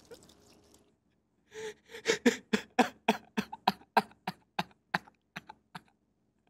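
A man sobbing hard: a fast run of short, broken, gasping sobs, about five a second, beginning about one and a half seconds in and growing weaker and more spaced out toward the end.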